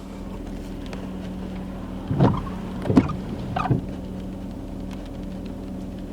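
Steady low hum inside a car, with rain falling outside, broken by three short sounds a little over two, three and three and a half seconds in.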